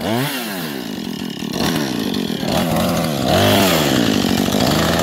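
Husqvarna two-stroke chainsaw running, its engine pitch rising and falling several times.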